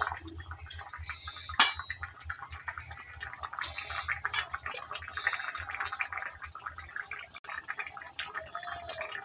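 Fish curry gravy bubbling in a kadai, with small wet splashes and plops as fried fish pieces are slipped into it by hand. One sharp louder click about a second and a half in.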